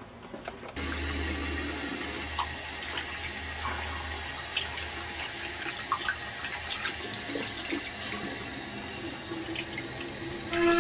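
Water running steadily, starting suddenly about a second in, with scattered small clicks and splashes.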